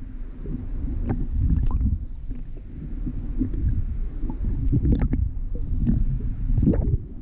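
Muffled, low rumbling and gurgling of water moving around a camera held underwater, with a few sharp knocks and clicks.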